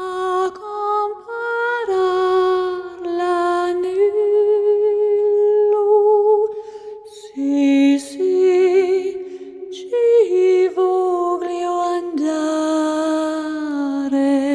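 Slow, lullaby-like vocal music: a voice sings long held notes with vibrato, at times with a second line in harmony.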